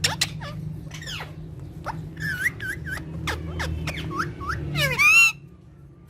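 Parrots chattering in short chirps and clicks, then one loud harsh squawk about five seconds in, after which it goes quieter. A low steady hum runs underneath.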